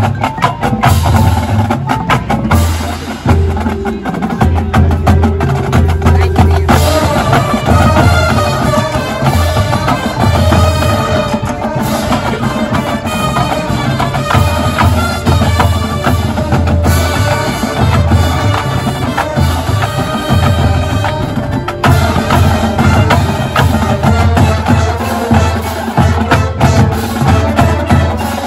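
High school marching band playing, with percussion and a pulsing low drum beat throughout. The wind section joins with held chords about a quarter of the way in and drops out about three-quarters through, leaving the percussion.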